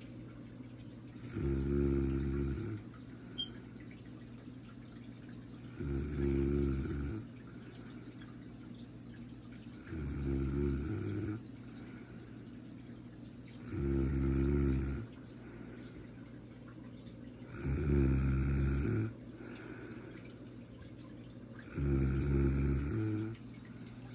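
A sleeping person snoring: six snores, evenly spaced about four seconds apart, each lasting a little over a second.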